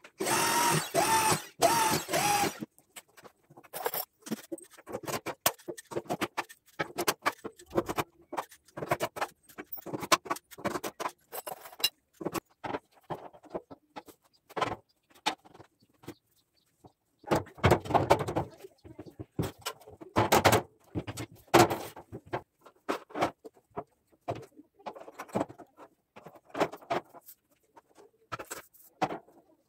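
An electric drill runs for about two and a half seconds, then stops. Irregular knocks and clatter follow as steel gate-frame tubes and boards are handled and fitted, with a few louder knocks in the second half.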